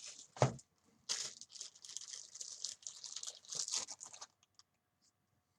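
A knock about half a second in, then packaging crinkling and rustling for about three seconds as products are handled.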